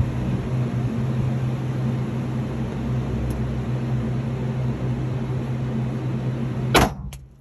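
Steady mechanical drone with a low hum, then about a second before the end a single sharp bang, a rifle shot from an AR-style rifle, after which the drone cuts off abruptly.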